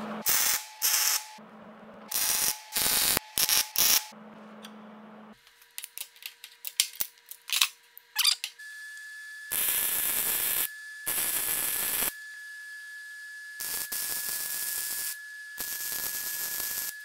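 Arc welding on steel parts: several short tack welds in quick bursts in the first few seconds, then a few light handling clicks, then four longer welds of about a second each in the second half.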